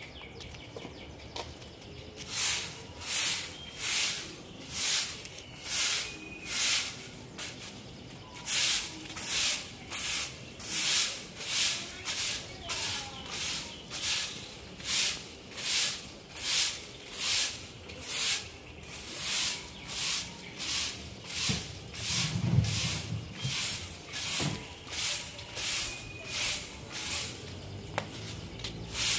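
Stick broom sweeping paving stones and concrete: a steady series of short swishes, about one and a half strokes a second, starting about two seconds in, with a brief pause near eight seconds.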